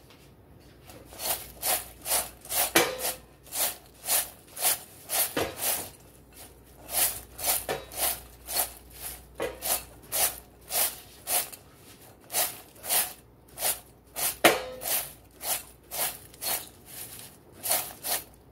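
Crisp fried brown chickpeas rattling and rustling in a glass bowl as it is shaken by hand to coat them with curry powder, in quick, even shakes about twice a second.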